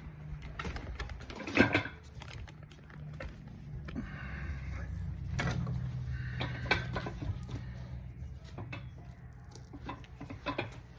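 Scattered clicks and knocks of handling and work at a bench over a low steady hum.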